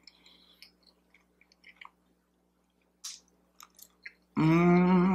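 Close-miked chewing of a mouthful of syrupy pancake: soft wet mouth clicks and smacks. Near the end comes a hummed "mmm" about a second long.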